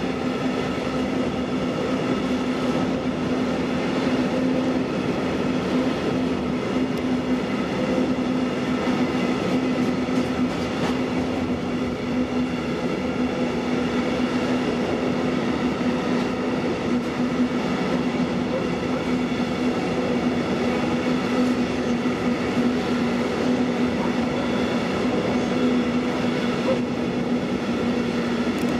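A train making a steady, unbroken hum with a constant pitch that holds unchanged throughout.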